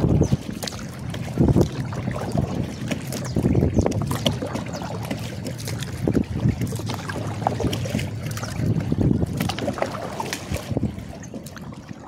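Wind buffeting the microphone of a kayak moving on the water, with irregular splashing and knocks of water against the hull.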